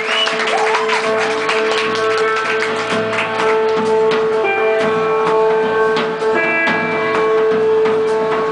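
Live rock band playing the instrumental opening of a song: guitar with held notes over a drum kit, and a low bass line coming in about a second in. A few whistles from the crowd trail off in the first second.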